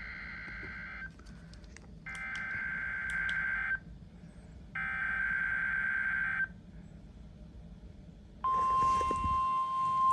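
NOAA Weather Radio SAME digital header for a Required Weekly Test: three bursts of warbling data tones, the first already underway, each under two seconds with about a second between them. About eight seconds in, the steady single-pitched 1050 Hz warning alarm tone starts and holds, with radio static hissing under it.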